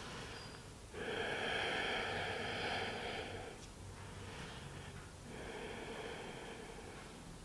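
A woman's slow, audible breathing: two long breaths, one starting about a second in and another a little past the middle.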